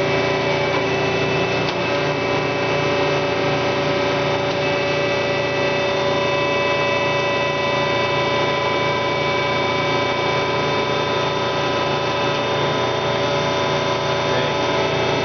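1980 Marvel 81A9 vertical band saw with its 10 HP motor running steadily: a constant mechanical hum made of several steady tones.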